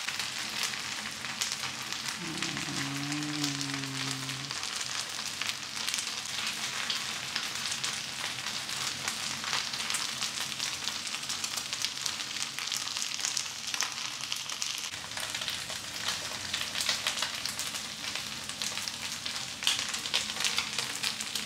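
Stir-fried flat rice noodles with beef sizzling and crackling in a hot frying pan, with a spatula tossing them at first. A short low hum sounds about two seconds in.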